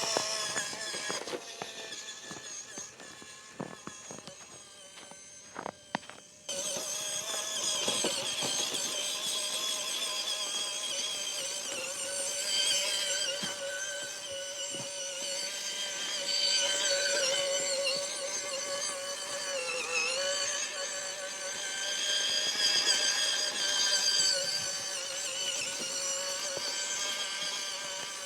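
Small RC car's electric motor and gears whining at a near-steady pitch as it drives, with a brief dip in pitch about two-thirds of the way through. Scattered knocks and clicks in the first few seconds.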